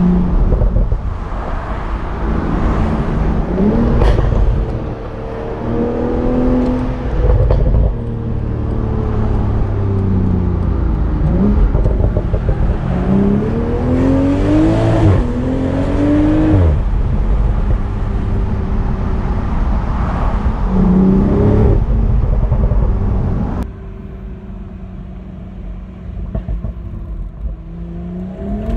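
The turbocharged 3.0-litre inline-six of a 2021 BMW Z4 M40i accelerating hard through the gears, its pitch climbing with each gear and dropping at every upshift. About three-quarters of the way through it drops to a quieter, lower drone as the throttle eases off.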